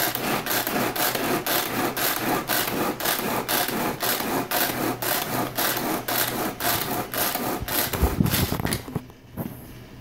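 Tupperware Power Chef pull-cord chopper being pulled over and over, a quick even run of rasping whirs, about three a second, as its blades chop carrots and onion; the pulling stops about nine seconds in.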